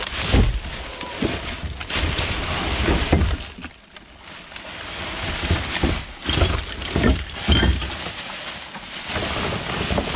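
Plastic bin bags and rubbish rustling and crackling as gloved hands rummage through a dumpster, with dull knocks and thumps as items shift.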